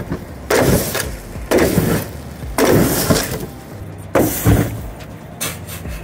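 Polystyrene foam burning and melting under molten aluminium: harsh, noisy crackling in bursts about once a second.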